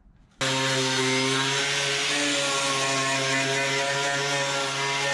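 A handheld power tool starts abruptly about half a second in and runs steadily at one speed, a loud even hum with a strong hiss over it.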